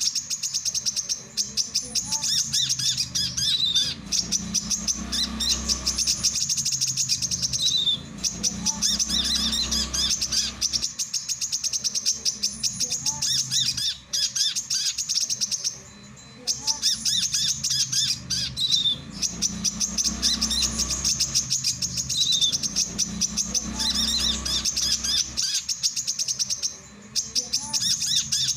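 Male brown-throated sunbird (kolibri kelapa) singing: long runs of rapid, high twittering chatter, broken by short pauses every few seconds.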